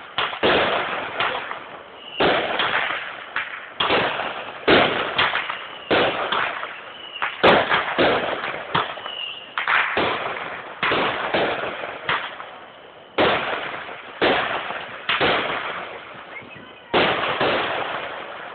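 Fireworks going off in quick succession: a sharp bang every half second to a second, about twenty in all, each trailing off in an echo.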